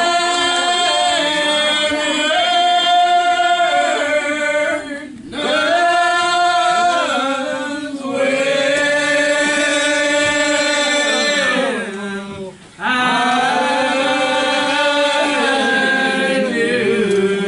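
Church singing: voices hold long, drawn-out notes of a gospel hymn, with little sign of instruments. The phrases break briefly about five seconds in and again near thirteen seconds.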